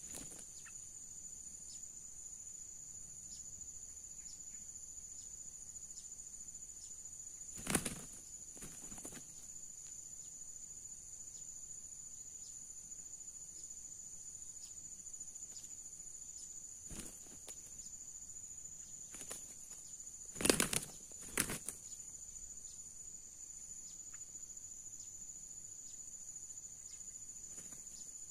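Red junglefowl roosters' wings flapping in a few short bursts, the loudest a close pair about twenty seconds in, over a steady high-pitched drone of insects.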